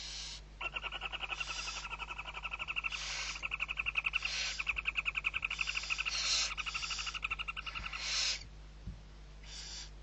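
Barn owls at the nest while chicks are being fed: a rapid chittering trill that runs for about eight seconds and stops shortly before the end, with short hisses repeated over and after it.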